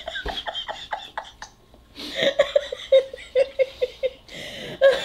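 A woman laughing in runs of short rhythmic bursts, with a brief pause for breath about a second and a half in.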